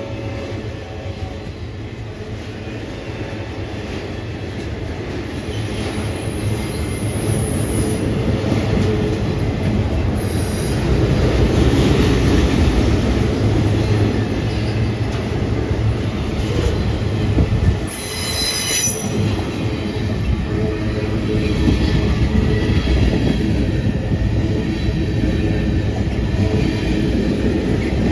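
Freight train cars rolling past, with steady wheel-on-rail rumble and clatter. A brief high-pitched wheel squeal comes about eighteen seconds in.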